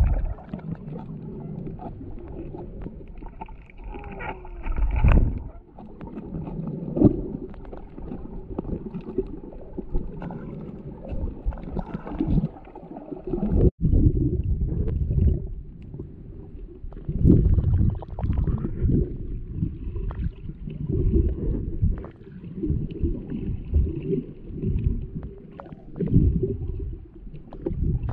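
Muffled, low sloshing and rushing of water around a camera held underwater while snorkeling, swelling and fading unevenly every second or two, with a brief dropout about halfway through.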